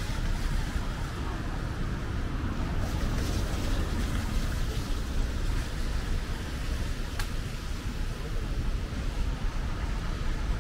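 Rainy street ambience: a steady low rumble of traffic and wind on the microphone under an even hiss, with a single sharp click about seven seconds in.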